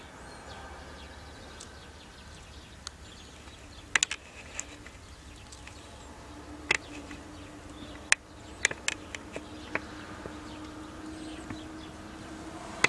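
Outdoor background with a faint steady hum from about halfway through, broken by scattered sharp clicks and ticks, a few of them close together.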